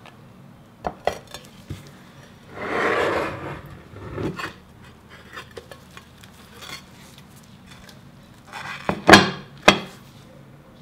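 A ceramic plate and glass bowl being handled: a few light clinks, a scraping rub about two and a half seconds in, then two sharp knocks near the end as the plate and the upturned bowl are set down on the worktop.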